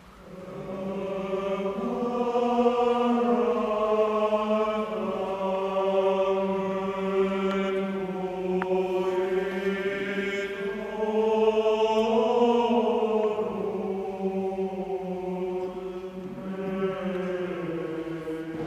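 Mixed choir of men's and women's voices singing in long, held chords. The singing comes in about half a second in and swells and eases as it goes.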